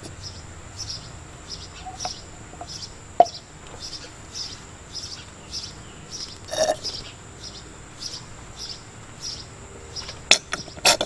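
Turkey baster drawing power steering fluid out of the pump reservoir and emptying it into a steel pot: a few light clicks and knocks, and one brief louder noise about two-thirds through. Faint chirping repeats about twice a second behind it.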